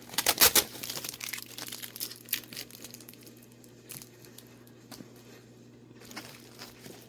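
Mail packaging being torn open and crinkled by hand: a loud burst of tearing in the first second, then smaller scattered crinkles and clicks that thin out.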